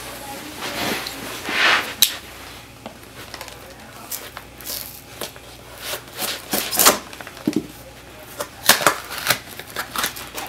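A folding pocket knife slitting the tape and cardboard of a small mailing box, with scraping and a run of sharp clicks, then the cardboard flaps being pulled apart and the paper packing inside rustling.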